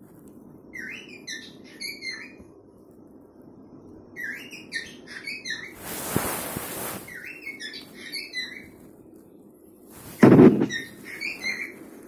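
Cockatiel singing to its mate: four phrases of quick, warbling chirps and whistles, separated by short gaps. A brief rustling hiss comes about halfway through, and a loud thump near the end.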